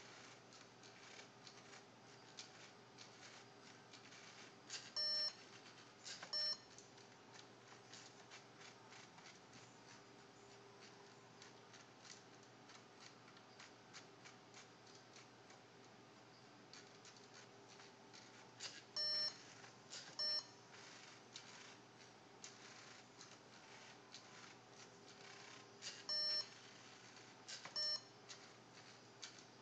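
A Lego Mindstorms NXT plotter at work: its motors make faint, irregular ticking and whirring as they move the pen and paper. Three times, the NXT brick gives a pair of short, loud electronic beeps about a second apart.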